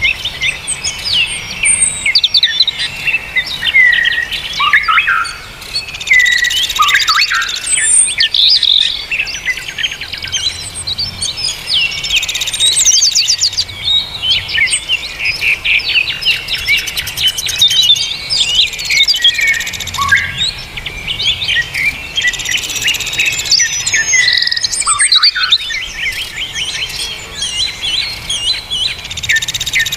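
Dense, continuous chorus of songbirds chirping, whistling and trilling over one another, with a buzzy trill coming back every few seconds: a compiled bird-song training track (masteran).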